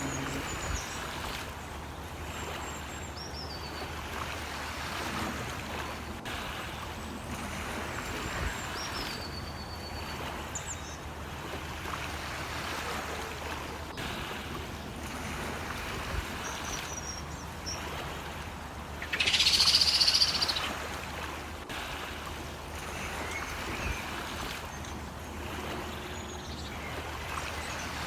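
Steady low hum under a rushing noise, with scattered short high bird chirps and one louder, harsher call of about a second and a half, about two-thirds of the way through.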